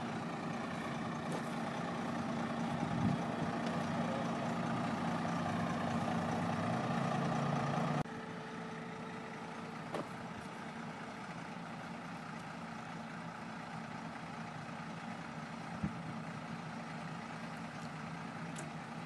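Heavy 30,000-lb-capacity forklift's engine running steadily under load as it carries a 65,000-lb railcar body. The hum builds over the first eight seconds, then drops suddenly to a quieter, steady running for the rest.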